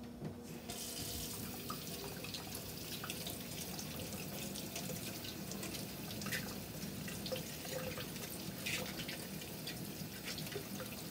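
Kitchen faucet turned on just under a second in and running steadily into a stainless steel sink, with splashing as a bunch of asparagus is rinsed under the stream.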